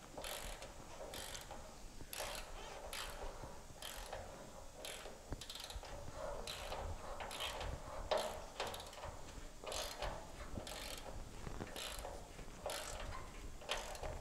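Hand ratchet wrench clicking in repeated back-strokes, about one to two a second, as a bolt is run in and tightened on a transmission crossmember mount.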